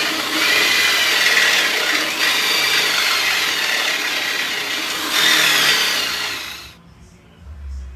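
Power drill with a step drill bit running under load, a loud grinding noise with a high whine riding over it that stops about seven seconds in. It is boring out the wheel's centre to take a 5/8 inch axle instead of a 1/2 inch one.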